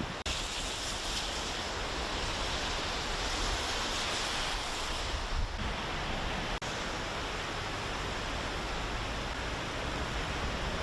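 A swollen river in flood rushing, a steady noise of fast water, broken by two brief dropouts, one just after the start and one a little past halfway.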